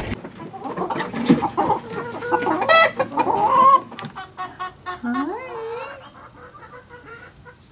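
Chickens clucking and calling in quick succession, with rustling and knocks in the first few seconds. About five seconds in, a few drawn-out calls rise in pitch, then the calls thin out.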